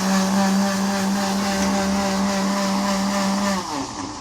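Electric kitchen blender running at a steady speed, a loud even motor whir over a hiss. It is switched off about three and a half seconds in, and its pitch falls as the motor spins down.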